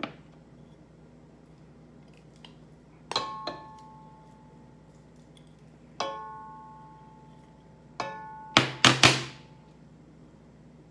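A spoon knocking against the rim of a cooking pot as food is tapped off it, each knock ringing briefly, four times. Near the end come three louder, harsher knocks in quick succession.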